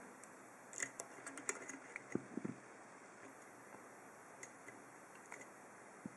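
Faint metallic clicks of a hook pick working the pins of an ASSA seven-pin oval lock cylinder held under a tension wrench: a cluster of small clicks in the first few seconds, then only occasional ticks.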